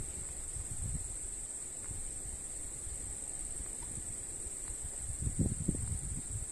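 Steady high-pitched insect trill, typical of crickets, running on without a break over a low rumble, with a few low muffled sounds about five and a half seconds in.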